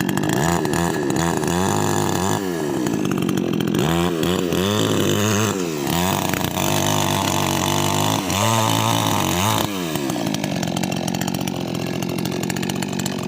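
Small two-stroke chainsaw engine running and being revved up and down several times, then running steadier and a little quieter from about ten seconds in.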